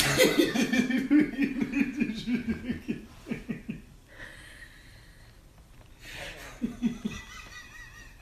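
Men laughing hard for about three seconds, fading, then a shorter burst of laughter about six seconds in.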